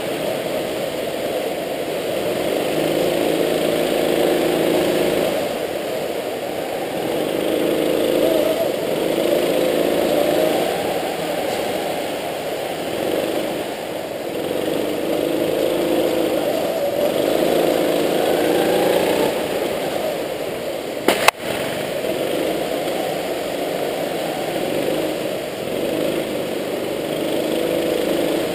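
Indoor rental go-kart engine running, heard from a camera mounted on the kart, its pitch repeatedly rising and falling as it accelerates and eases off around the corners. A single sharp knock sounds about two-thirds of the way through.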